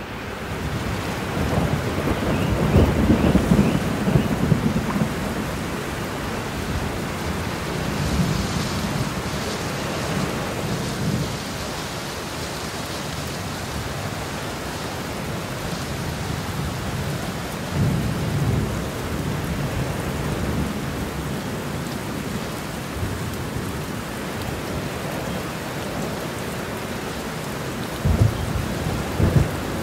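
Heavy rain falling steadily, with thunder rolling in low rumbles. The longest and loudest rumble comes in the first few seconds. Shorter ones follow about a third of the way in, past halfway, and near the end.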